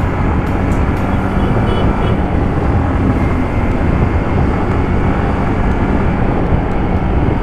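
Yamaha MT-15 motorcycle riding at speed on a highway: steady engine drone under heavy wind rush over the GoPro's microphone.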